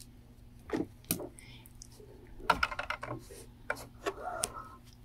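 Scattered light clicks and taps as the top thread of a Brother sewing machine is changed and threaded down to the needle by hand.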